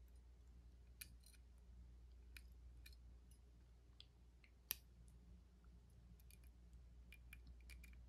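Faint, scattered small metal clicks of a lock pick working the pin stack in the keyway of a Master combination padlock under light tension, over a low steady hum. One sharper click comes a little past the middle.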